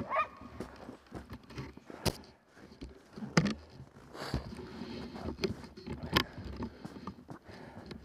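Dog sled running over a packed snow trail: a low, uneven rumble of runners on snow, with sharp knocks and rattles from the sled about every second or two. A short yelp-like call comes from the dogs right at the start.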